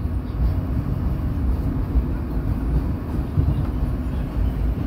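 Low, steady rumble of a New York City subway train running on elevated tracks.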